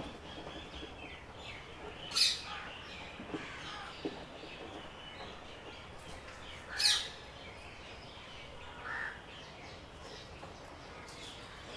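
Birds chirping and calling, with two louder, harsh calls about two and seven seconds in and a softer call near nine seconds.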